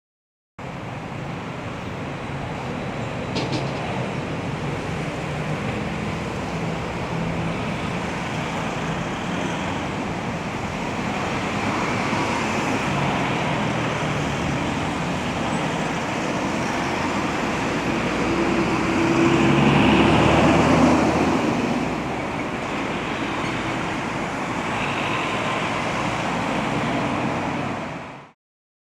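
Street traffic noise: a steady wash of passing road vehicles, with one vehicle passing louder about twenty seconds in. Picked up through a Comica Traxshot shotgun microphone in T mode, one capsule aimed at the street.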